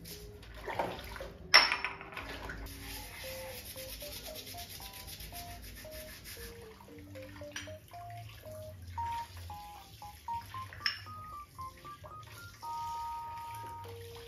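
Soft background music, a slow melody of single held notes, over a faint steady noise. A sharp knock about one and a half seconds in, with a few lighter clicks later.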